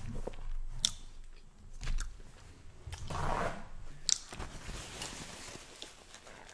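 A person chewing food close to the microphone: soft, wet mouth sounds with a sharp click about a second in and another about four seconds in.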